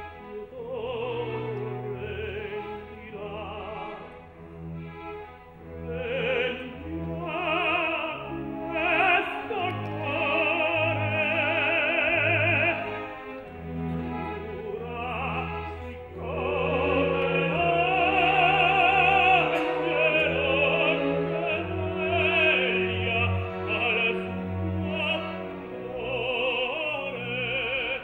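Operatic solo voice singing with wide vibrato over a full orchestra with strings, growing louder in the second half.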